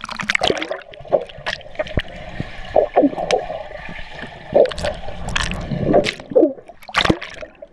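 A splash, then water gurgling and bubbling heard from a GoPro action camera held underwater in a swimming pool, with many sharp clicks and knocks.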